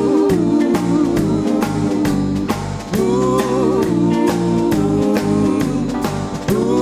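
Live rock band playing a slow rockabilly intro: long held phrases that restart about every three seconds, over a steady beat.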